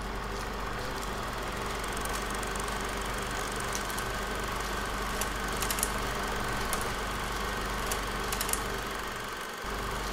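Steady hum and mechanical running noise with scattered clicks and crackles, dipping briefly near the end: noise from the transfer of a silent 16mm film, not a recorded soundtrack.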